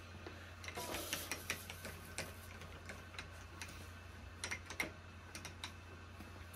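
Irregular light clicks and ticks, in two clusters about a second in and again near five seconds, over a steady low hum.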